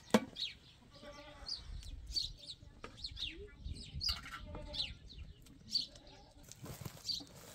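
Farmyard sounds: a goat bleating, with small birds chirping in short high notes again and again. A sharp knock right at the start, a ladle striking a dish, is the loudest sound.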